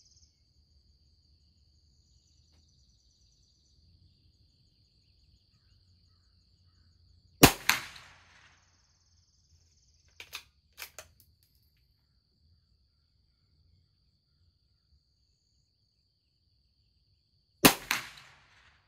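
Two single shots from a Christensen Arms Ranger .22 LR bolt-action rifle, about ten seconds apart, each a sharp crack with a short echo. A couple of seconds after the first shot come two small metallic clicks of the bolt being worked to chamber the next round. A steady high insect buzz runs underneath.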